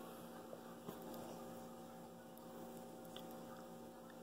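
Faint steady electrical hum over quiet room tone, with one soft click about a second in.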